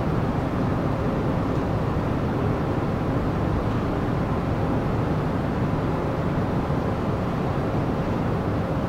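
Ferry's engines running with a steady low drone, with a faint steady hum over it, as the ship gets under way from the pier.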